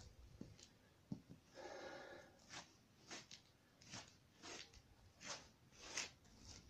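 A man's short, sharp exhalations through the mouth, faint, about two a second, the breath forced out with each punch thrown in the air, after one longer breath about two seconds in.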